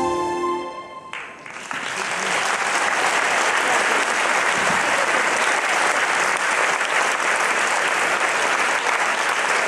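Dance music fades out about a second in, and the audience breaks into steady applause that carries on.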